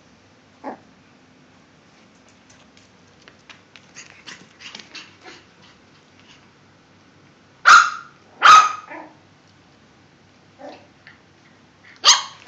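Cavalier King Charles spaniels play-barking: two loud sharp barks close together about eight seconds in and another near the end, with quieter short scuffling sounds between.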